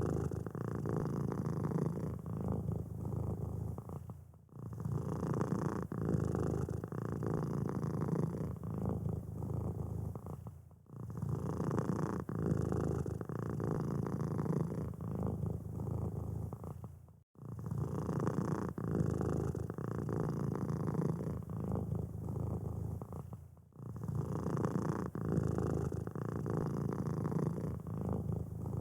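Domestic cat purring steadily, low and rumbling. The purr breaks off briefly about every six and a half seconds.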